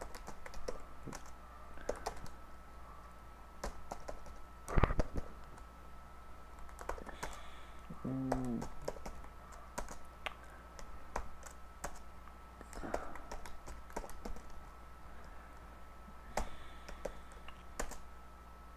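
Typing on a computer keyboard: irregular runs of keystrokes, with one louder thump about five seconds in.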